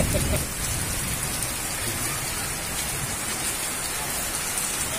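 Heavy rain falling with a steady, even hiss.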